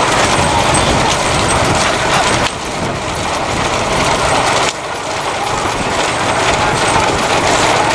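A motor vehicle running at speed with steady road and wind noise. The sound drops suddenly about two and a half seconds in and again near five seconds.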